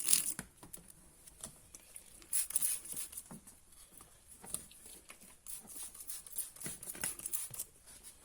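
Cloth rubbing along seatbelt webbing in irregular wiping strokes as a polymer coating is worked into the belt.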